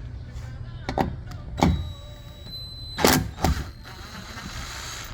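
Knocks and clunks of tools and metal parts being handled while the 8 mm bolts of a car's transmission undercover come out: one about a second in, one a little later, and two close together past the middle. A faint steady whir follows near the end.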